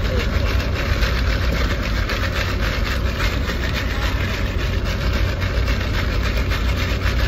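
Steady low rumble and hiss inside a car's cabin, from the car's engine idling.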